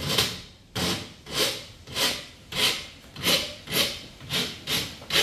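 Rhythmic back-and-forth scraping at the open drawer of an aluminium cashier desk, about two rasping strokes a second, each swelling and fading, speeding up slightly near the end.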